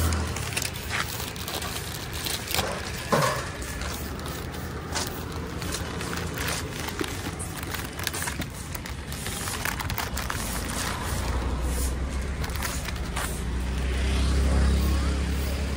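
Motor vehicle engine running close by, its low hum swelling at the start and again from about eleven seconds in, with scattered clicks and knocks on top.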